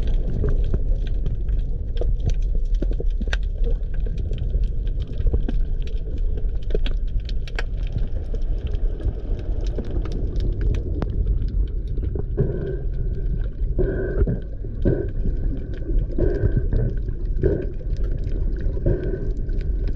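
Underwater ambience picked up by a camera in a waterproof housing: a steady low rumble of moving water with scattered sharp clicks and crackles. From about two-thirds of the way in, a muffled pulsing sound recurs about once a second.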